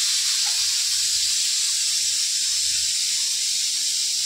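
Steady, loud high-pitched hiss of pressure venting from a tyre retreading mould press.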